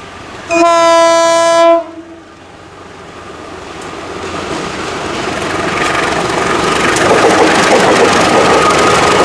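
A diesel locomotive's horn blows once, a single steady note held for just over a second. Then the approaching train grows steadily louder, its engine and wheel noise building toward the end.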